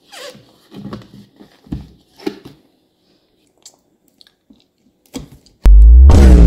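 A few short rustles and scrapes of hands handling a cardboard camera box. Near the end a sudden, very loud, distorted sound effect with heavy bass and sliding pitch cuts in.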